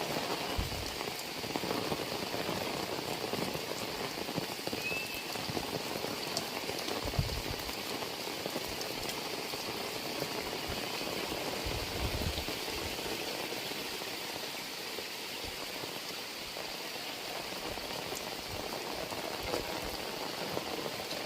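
Heavy rain falling steadily, with a few brief low thuds.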